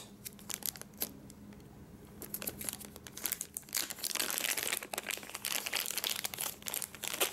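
Small clear plastic bag crinkling and rustling as it is handled and opened, a rapid run of crackles that gets busier and louder about two seconds in.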